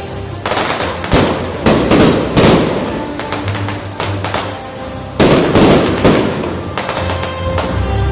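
Aerial fireworks bursting in quick succession, sharp bangs trailing into crackle, with a loud cluster about half a second in and another about five seconds in. Music plays underneath.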